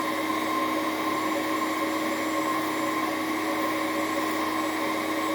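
Nail drill with a fine burr running at a steady whine, smoothing the edges of a glued fibreglass repair strip on a split nail.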